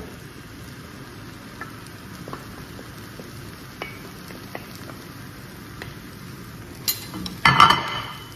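Wooden spoon scraping stir-fried vegetables out of a dish into a frying pan of rice noodles, with a faint steady sizzle and light taps. A louder clatter comes near the end.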